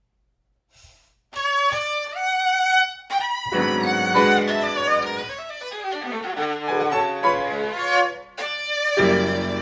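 A viola begins a phrase alone after a moment of silence, and a grand piano joins with low chords a couple of seconds later. The two play on together, with a brief drop and then a loud entry from both near the end.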